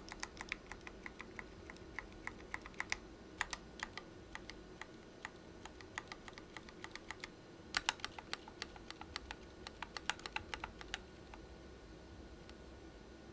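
Mechanical keyboard with C3 Equalz x TKC Kiwi tactile switches and Matrix keycaps being typed on in irregular runs of keystrokes, a busier flurry about eight seconds in. The typing stops about eleven seconds in.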